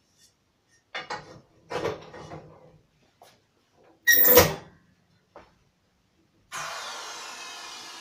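Knocks and a loud clunk about four seconds in as the shoe press's movable prop is set down into a rubber boot, then a steady hiss of compressed air that starts suddenly about six and a half seconds in and slowly fades, as the press's 3-position switch sends air to the diaphragm unit.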